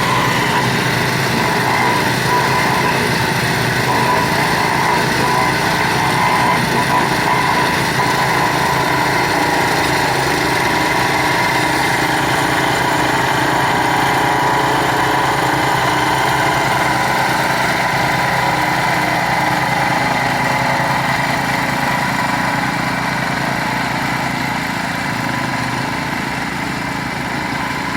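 A small engine running steadily at an even speed, growing a little quieter over the last few seconds.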